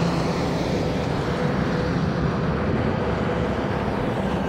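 Single-engine propeller light aircraft flying overhead, its engine droning steadily over a noisy background.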